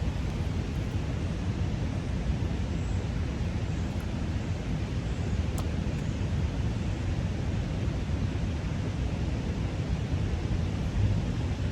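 Wind buffeting the microphone over a steady rushing noise, heaviest in the low end. Two faint ticks come about four and five and a half seconds in.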